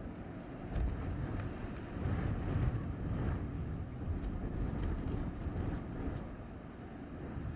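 Blizzard wind blowing in gusts: a deep, rushing noise that swells about a second in and again around two and four seconds in, with a few faint ticks over it.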